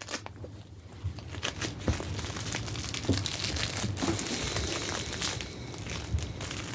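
Plastic packaging crinkling and rustling in the hands, with scattered small clicks and knocks, as small kit items are handled and fitted in.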